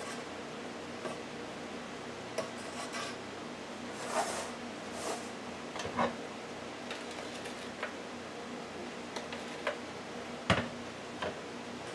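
A metal knife spreading thick frosting over a cake in a pan, with scattered light clicks and scrapes as the blade and the blender jar touch the pan and each other. The sharpest knock comes about ten and a half seconds in, over a steady low hum.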